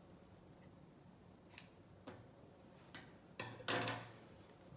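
Scissors snipping through t-shirt fabric: a few faint snips, then one longer, louder cut about three and a half seconds in.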